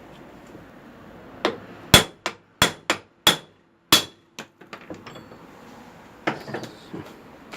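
Hammer striking steel on a car's rear wheel hub bearing, worked by hand without a puller. About seven hard ringing blows come in quick succession from about a second and a half in, followed by lighter taps and clinks.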